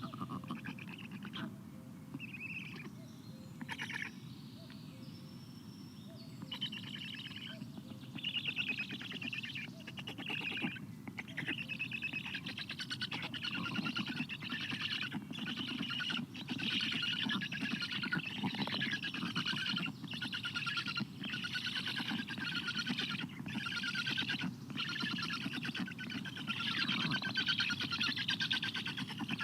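Black stork chicks begging for food in the nest: a rapid, buzzing rasp repeated in runs of about a second with short breaks. It starts a few seconds in and grows louder. A steady low hum runs underneath, and a few faint whistled bird notes come near the start.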